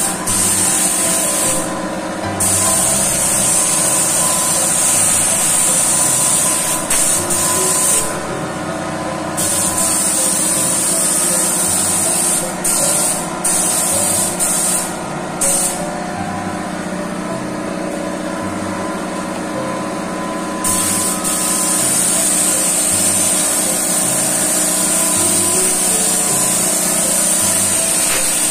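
Compressed-air paint spray gun hissing as paint is sprayed onto a car bonnet. The hiss stops and restarts several times as the trigger is released, with one longer pause of about five seconds past the middle, over a steady hum underneath.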